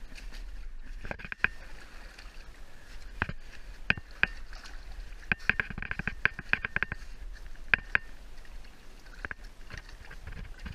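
Water sloshing as someone moves through water in a narrow slot canyon, with a series of sharp clicks and knocks that are densest about halfway through.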